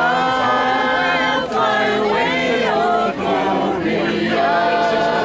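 A group of voices singing a hymn together, holding long notes.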